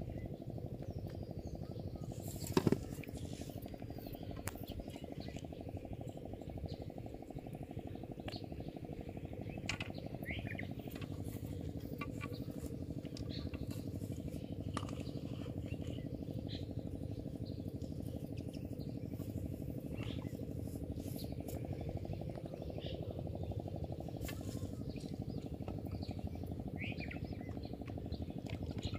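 Outdoor ambience: a steady low rumble with scattered short, faint bird chirps, and one sharp click about two and a half seconds in.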